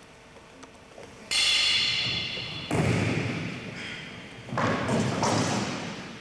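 Three sudden loud impact sounds ring through a large echoing hall as two martial artists close in and grapple. The last comes about two-thirds in, as one of them is thrown down onto the wooden floor.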